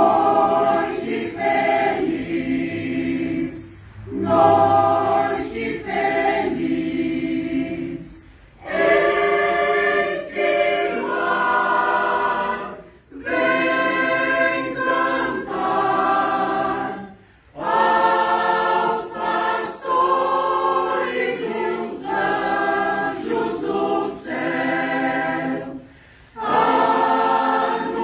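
Choir singing a Christmas song unaccompanied, in phrases of a few seconds with short pauses for breath between them.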